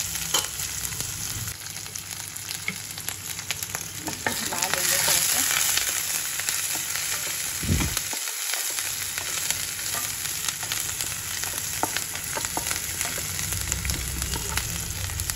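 Chopped onions and cumin seeds sizzling in hot oil in a nonstick kadhai, with a spatula stirring them and scraping and clicking against the pan.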